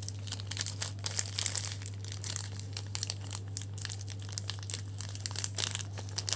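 Plastic packaging crinkling and rustling in irregular crackles as it is handled, over a steady low hum.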